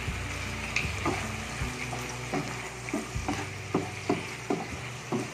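Chicken cubes and bell peppers sizzling steadily in a frying pan while a wooden spatula stirs them, with repeated short knocks and scrapes of the spatula against the pan.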